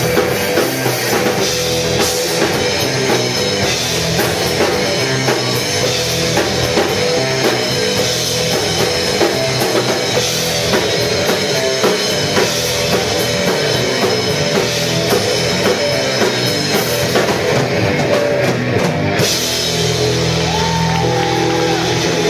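Live rock band playing: electric guitars over bass guitar and a drum kit with cymbals, loud and steady.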